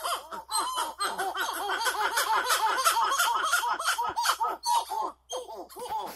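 Masked titi monkeys (Callicebus personatus) calling in chorus: a fast, continuous run of short rising-and-falling whooping notes, several voices overlapping, with a brief break a little after five seconds in. It is their territorial call, which drives off rival males.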